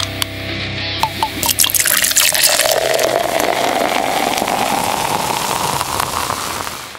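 Beer poured into a glass: a few splashy drips, then a steady frothy pour whose pitch rises as the glass fills, stopping abruptly at the end.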